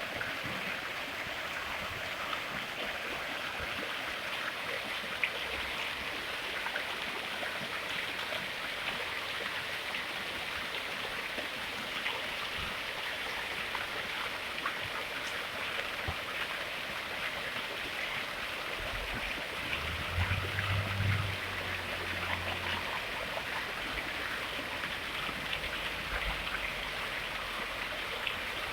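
Water of a fountain splashing and trickling steadily, with many small droplet ticks. A brief low hum comes in about two-thirds of the way through.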